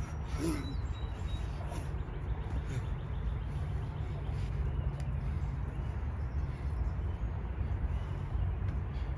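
Steady low rumbling background noise, with a few faint short high chirps like birds.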